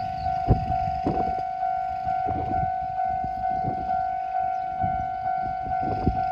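Japanese level-crossing warning bell ringing in a steady two-tone electronic clang about twice a second. A narrow-gauge train passes over the crossing, its wheels knocking heavily and unevenly over the rail joints, loudest about half a second in and again near the end.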